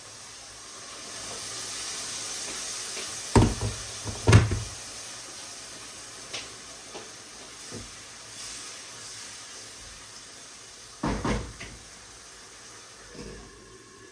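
Onions in a pan hissing as water is added, with sharp knocks of kitchen handling: two loud knocks a few seconds in, light clicks, and two more knocks near the end.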